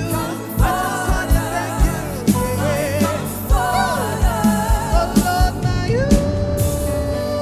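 Live Afro gospel praise music: a singer's wavering vocal runs over the band's bass and a regular kick-drum beat, settling on one long held note about six seconds in.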